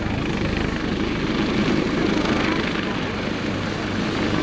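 AgustaWestland HH-139A (AW139) helicopter hovering low, its five-blade main rotor and twin turboshaft engines running steadily and loudly.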